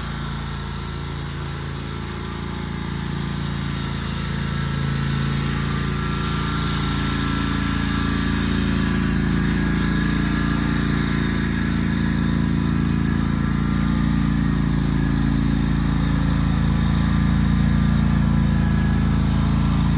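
Riding lawnmower engine running steadily, growing a little louder over the first several seconds and then holding.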